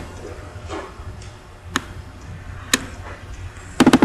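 Computer mouse clicking: single sharp clicks roughly a second apart, then a quick double click near the end, over a low steady hum.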